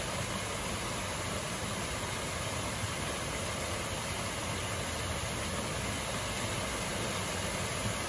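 Steady rush of a waterfall pouring over a stepped concrete weir into a stream: an even, unbroken hiss with nothing else standing out.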